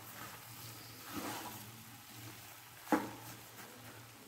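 Spoon stirring carrot halwa in a cooking pan: soft scraping with a faint sizzle, and one sharp knock about three seconds in.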